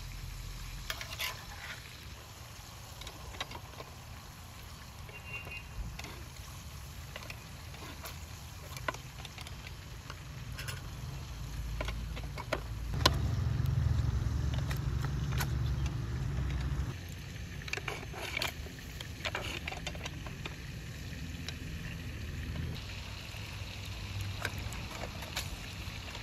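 Hand-lever metal citrus press squeezing orange halves: scattered metal clicks and knocks over a low rumble that swells for a few seconds in the middle.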